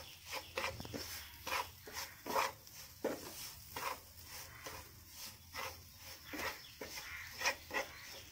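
Wooden spatula stirring and scraping grated coconut and sugar around a frying pan, in repeated short irregular strokes about two a second.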